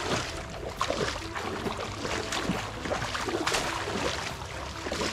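Shallow muddy water splashing and sloshing in irregular bursts as hands grope through it.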